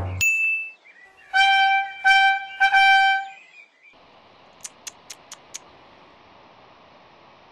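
A short high ding, then three short brass-sounding notes at the same pitch, a trumpet-like comic sting. After that, a faint outdoor ambience with a quick run of five high bird chirps.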